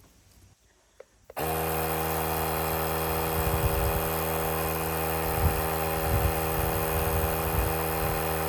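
Portable battery-powered tire inflator compressor, an Andeman jump starter/compressor unit, switching on about a second and a half in and then running with a loud, steady hum as it pumps up a low ATV tire. A couple of faint clicks come just before it starts.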